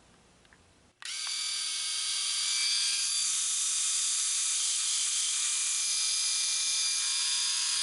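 Kibiy seven-head cordless rotary electric shaver switched on about a second in, its motor and rotary cutters running with a steady high-pitched whir.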